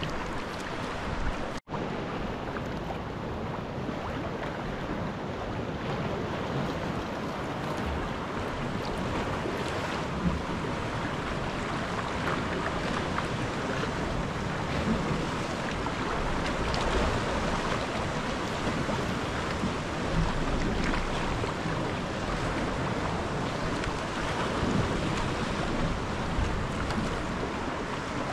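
Sea water lapping and splashing around a sea kayak as it is paddled, with wind on the microphone. The sound cuts out for an instant about a second and a half in.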